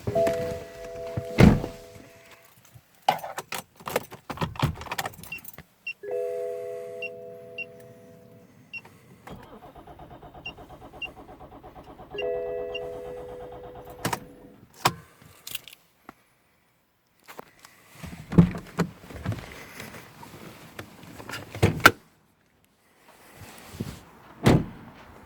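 BMW E61 525d interior warning gong chiming three times. Between the chimes come faint even ticking, a rhythmic mechanical whirr for several seconds in the middle, and scattered clicks and knocks, as the car is tried with a failed ECU and will not start.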